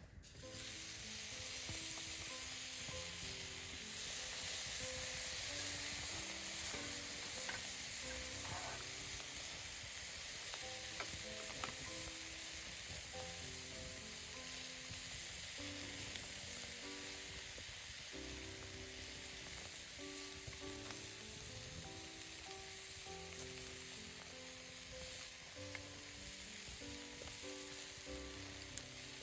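Food sizzling steadily as it fries in a hot pan.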